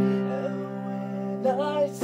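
Upright piano chord ringing on as it fades, with a man singing a short phrase about one and a half seconds in.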